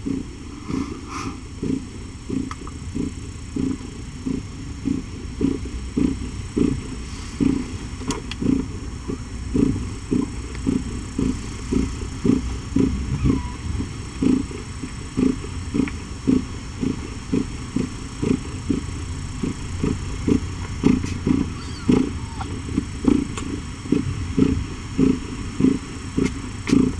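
Mother cat purring while nursing her newborn kittens: a low, steady rumble that swells about twice a second with her breathing.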